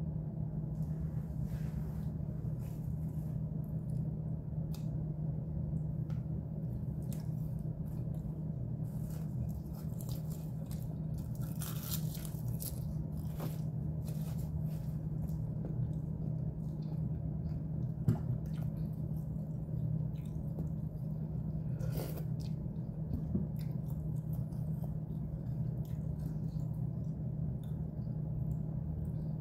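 Close eating sounds of a meal of stir-fried baby octopus and noodles: wet chewing and biting, with a few sharp clicks of the tongs and spoon, over a steady low hum.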